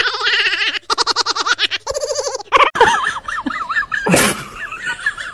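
A person laughing hard in rapid, high-pitched bursts. After a cut comes a wavering, warbling tone with a short sharp noise about four seconds in.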